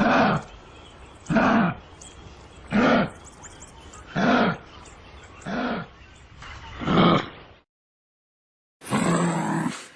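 An animal giving loud, short calls, six in a row about a second and a half apart, each rising and falling in pitch. The calls cut off suddenly, and after a second of silence a different short sound begins near the end.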